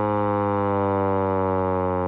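Vixen Horns VXS-1200M hand-crank tornado siren sounding a steady, loud wail full of overtones. Its pitch sags slightly, then starts to rise again near the end.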